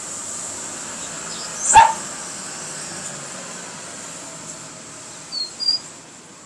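A caged rufous-collared sparrow (chingolo) gives two short, high chirps near the end. About two seconds in there is one loud, short call with a quick downward sweep.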